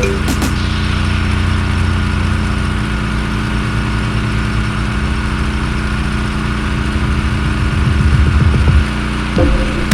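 Gas-engine pressure washer running steadily, a continuous low engine hum with a thin steady whine above it.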